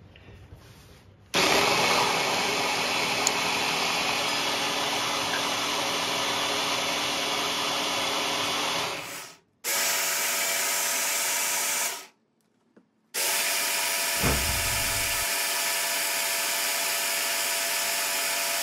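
An electric hand blender's chopper attachment runs at a steady speed, chopping canned tomatoes, garlic and chili peppers into a chutney. The motor starts about a second in and is switched off and on twice in quick succession.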